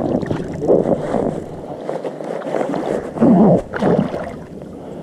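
A hooked pike thrashing and splashing at the water surface beside a float tube, in irregular splashes, the biggest a little over three seconds in; the fish is still fighting, not yet tired.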